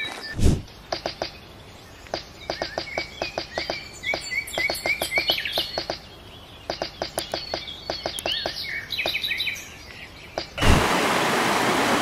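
Great spotted woodpecker: runs of sharp, quick taps, several a second, mixed with short chirping calls. A dull thump comes about half a second in. Near the end the sound cuts abruptly to a mountain stream rushing loudly and steadily over rocks.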